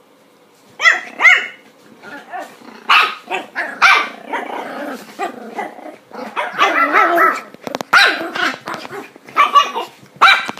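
Chihuahuas barking and growling in a long run of short, high yappy barks, starting about a second in.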